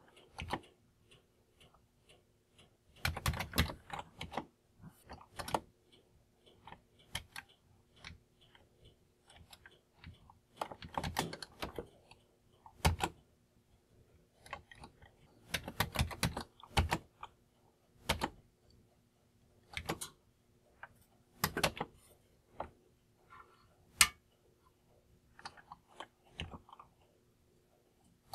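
Keystrokes on a Commodore 64 keyboard: irregular short bursts and single presses of the keys, with pauses in between.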